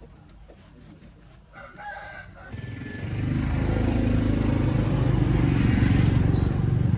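A brief pitched call, then an engine comes in loudly about two and a half seconds in. It rises over half a second and keeps running steadily with an even pulsing beat.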